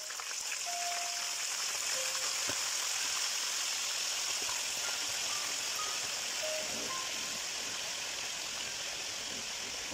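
Chicken pieces and garlic cloves deep-frying in hot olive oil in a pan: a steady, hissing sizzle with a few sharp pops of spitting oil. Sparse notes of light background music sound over it.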